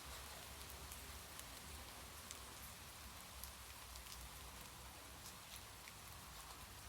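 Faint, steady rain: a soft hiss with scattered individual drops ticking, over a low rumble.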